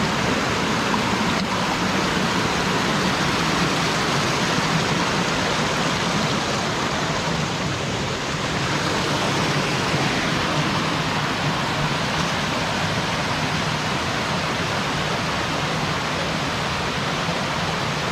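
Mountain stream rushing over a small cascade: a steady rush of water.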